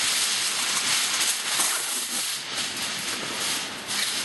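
Heavy-duty aluminum foil rustling and crinkling steadily as it is folded around a piece of smoked meat.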